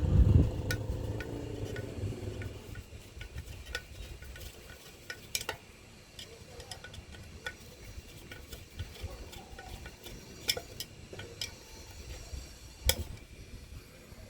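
Small, irregular clicks and scrapes of hand work on a roof-vent fan, as the screw at the centre of the fan blade is put in and tightened. A low rumble of handling in the first couple of seconds, and a sharper click near the end.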